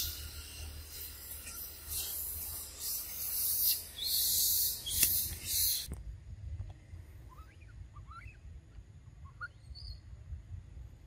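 A loud high hiss that surges and dies back for the first six seconds, then cuts off suddenly. After it, several faint short animal squeaks follow one another, each rising in pitch.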